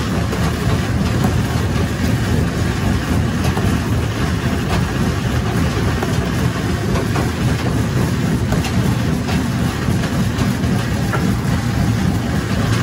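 Jaw rock crusher running under load, giving a steady heavy rumble from its drive and spinning flywheels. Sharp cracks and clatter come every second or two as rock is broken in the jaws.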